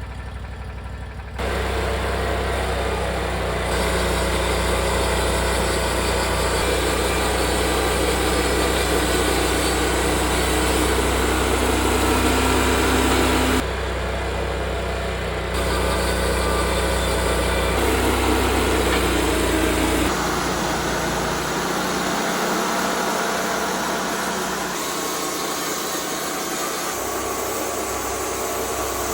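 TimberKing portable band sawmill's engine running under load while the band blade saws through a pine log. The engine sound comes up sharply about a second in and changes pitch and weight around the middle and again near 20 seconds.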